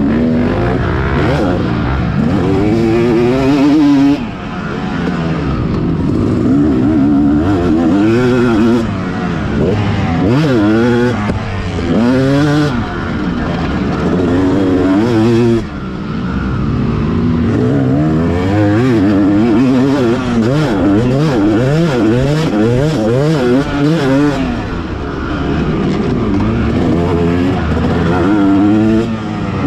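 Yamaha motocross bike's engine being ridden hard, its pitch climbing and falling again and again as the rider works the throttle through the gears. It briefly drops off when the throttle is shut, about four seconds in and again about halfway through.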